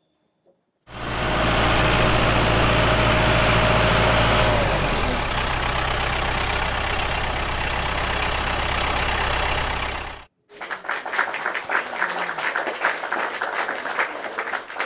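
Heavy bulldozer engine running steadily, its pitch dropping about four seconds in, then cut off abruptly. After a short gap, a rougher stretch of fast, dense rattling and clattering.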